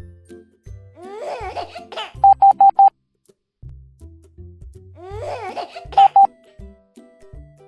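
Morse code beeps over bouncy children's music, one steady high tone keyed in short dits: four quick beeps a little over two seconds in and two more about six seconds in. Each group of beeps comes just after a burst of cartoon giggling that slides up and down in pitch.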